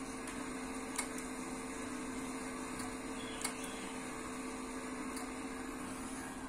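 Steady electrical hum and fan whir of a 144 MHz VHF power amplifier and its built-in power supply while it transmits around 400 watts, with two faint clicks, one about a second in and one near the middle.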